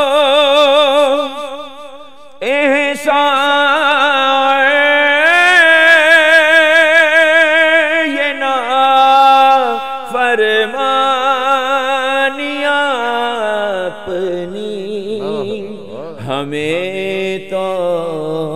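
A man singing an Urdu naat solo, with no instruments: long drawn-out melismatic notes with a wavering vibrato. There is a short breath about two seconds in, then the voice comes back on a long held phrase that winds up and down.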